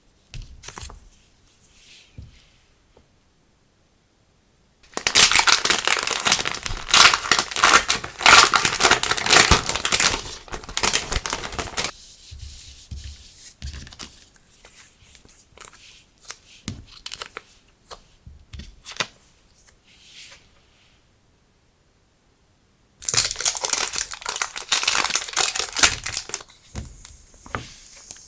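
Packaging being torn open and crinkled, in two long loud bouts, with quieter handling noises between them.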